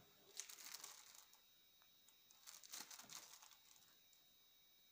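Clear plastic packaging bag crinkling as it is handled, in two bursts about two seconds apart.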